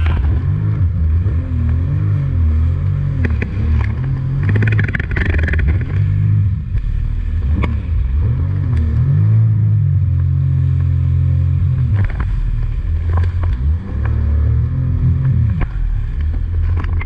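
Jet ski engine running at speed, its pitch rising and falling again and again as the throttle changes.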